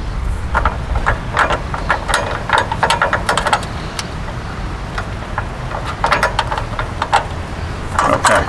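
Small metal mounting hardware clicking and rattling as nuts are fitted by hand onto screws under a lawn tractor's fender. The clicks come in three bunches: through the first few seconds, around six seconds in, and again near the end.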